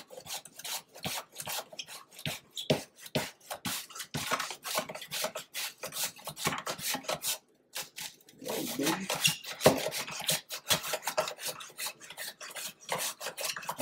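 White onion being sliced paper-thin on a plastic mandoline slicer on its thin setting, pushed back and forth across the blade in quick strokes, about three a second, with a brief break a little past halfway.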